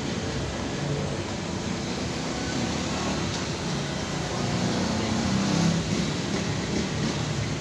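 A motor vehicle engine running nearby over a steady background hiss, growing slightly louder near the end.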